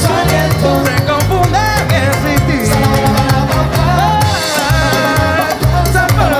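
Live band playing Latin Caribbean funk: a pulsing electric bass line under congas and cymbals, with melodic lines gliding above.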